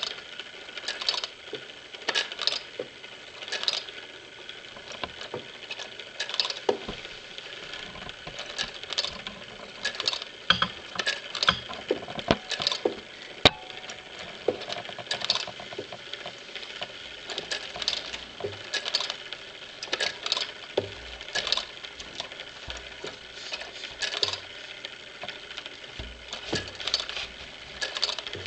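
Clockwork spring movement of a Schoenhut wind-up living picture automaton running, a steady whir with irregular clicks and taps, one or two a second, from its pinned wooden wheel and wire levers. One sharper click comes about halfway through.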